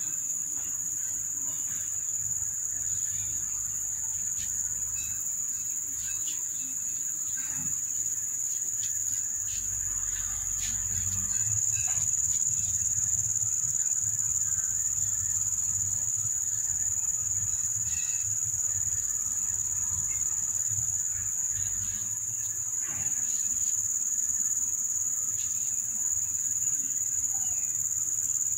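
Steady, high-pitched insect chorus, like stridulating crickets, with a few faint scattered clicks.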